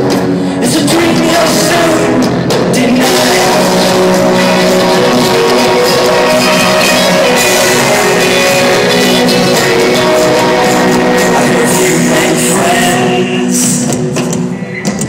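Live rock band playing loudly, with drums and guitars, recorded at close range with trashy, overloaded sound quality.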